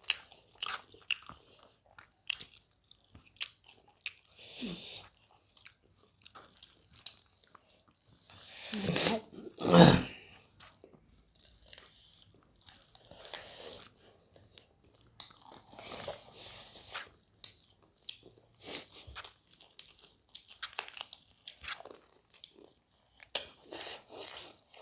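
People chewing and biting chicken gizzard and liver close to the microphone: wet, smacking mouth sounds and small crunchy clicks, with a louder burst about nine to ten seconds in.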